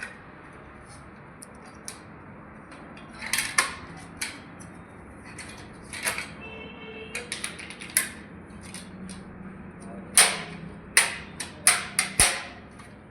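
Scattered sharp clicks and knocks of hard parts or tools being handled during the fitting work. A brief squeak comes about halfway through, and a quick cluster of louder knocks near the end.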